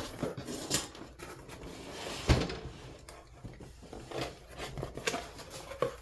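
A large cardboard box being opened by hand: irregular scraping and rustling as the taped flaps are cut and pulled open, with scattered clicks and one sharp knock about two seconds in.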